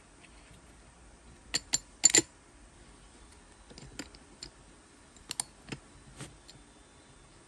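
Scattered sharp metal clicks and taps as an Allen key works the arbor bolt and flange holding the 3-inch cutting wheel on a DeWalt DCS438 cut-off tool, tightening the wheel. The loudest is a quick pair about two seconds in.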